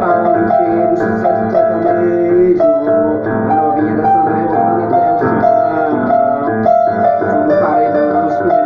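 Instrumental passage of a sertanejo song, a keyboard playing held notes in a melody over a steady backing, with no singing.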